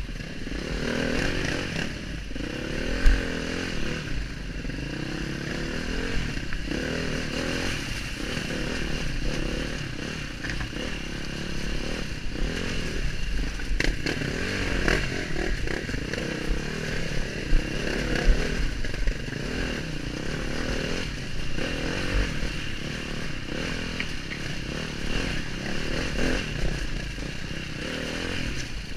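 KTM dirt bike engine being ridden, its revs constantly rising and falling, with the bike clattering and scraping over rocks and a sharp knock about three seconds in.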